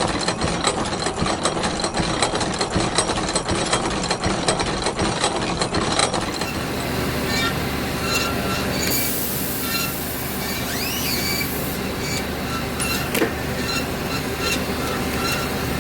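Hem Saw 750A horizontal metal bandsaw running. The first six seconds are a dense clatter of rapid clicks; after that comes a steadier machine sound with high whining tones and a brief rising-and-falling squeal.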